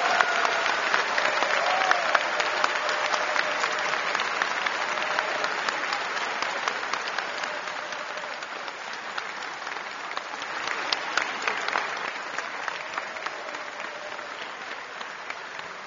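A large audience applauding, the clapping slowly dying down.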